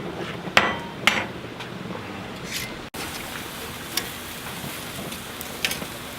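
Sharp knocks: two loud ones about half a second apart, then three fainter single knocks spread over the next few seconds, over a low steady hiss.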